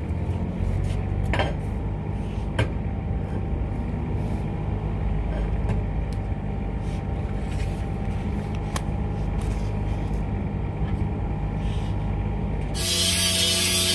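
Steady low machinery hum in a metal-fabrication shop with a few light metal knocks. Near the end a power tool starts abruptly with a loud hissing noise that has steady tones in it.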